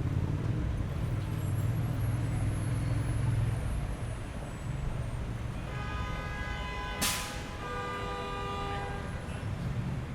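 City street traffic: a heavy vehicle's engine rumbles for the first few seconds. Then car horns honk with held tones from about six seconds in, and a short sharp hiss cuts through near seven seconds.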